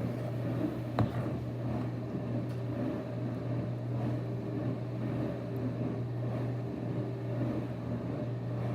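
Steady low hum with light background noise, and one sharp click about a second in.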